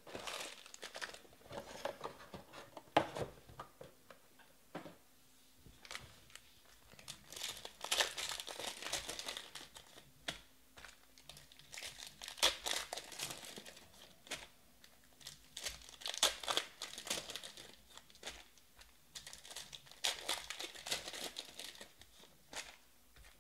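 Foil wrappers of 2020 Panini Prizm Baseball card packs crinkling and tearing as the packs are ripped open by hand, in irregular bursts a few seconds apart.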